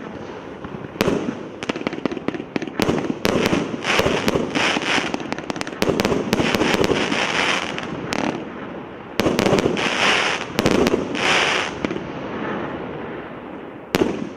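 Multi-shot fireworks cake of mixed-calibre shells (0.8, 1 and 1.2 inch) firing: a rapid, irregular string of sharp bangs from launches and bursts. Several denser stretches of crackling hiss swell among the bangs.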